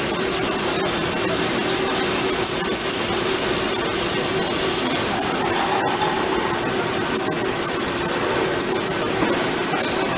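DAMA GMDC-3100 CNC drilling machine's spindle running as its drill bores into a metal plate: a steady mechanical hum with a constant tone under an even hiss.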